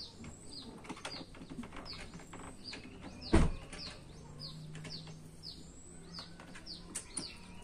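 Small metal clicks and scrapes of a chainsaw's bar and chain being tightened by hand with a wrench, with one loud thump about three and a half seconds in. A bird chirps over it again and again in short falling notes.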